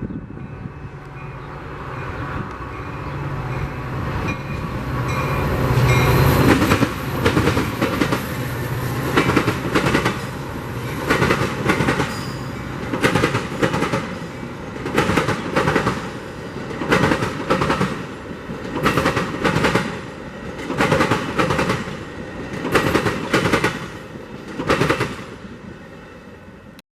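A train passing close by, its wheels clacking over the rail joints in a steady rhythm of strikes about once a second, with the tail of a horn fading at the start. The clacking fades away just before the sound cuts off.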